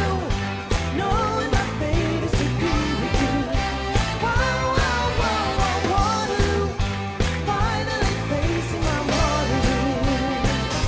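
Live band playing a song with a singer, over a steady beat and a bass line, with horns in the band.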